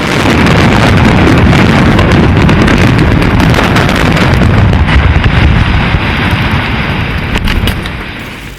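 A building collapsing in a demolition: a loud, rumbling din of falling structure and debris that builds up in under a second, holds for about eight seconds with a few sharp cracks near the end, then dies away.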